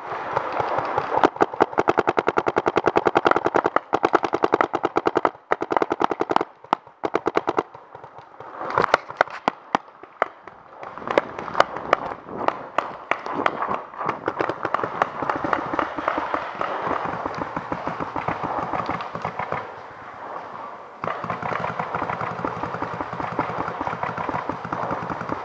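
Paintball markers firing rapidly, shots overlapping into a near-continuous rattle of volleys, with a brief lull about eight seconds in.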